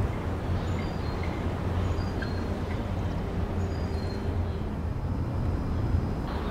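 Steady rumbling rush of an FPV drone in flight, as picked up by its onboard camera: mostly wind noise over the microphone, with a few faint short high whines.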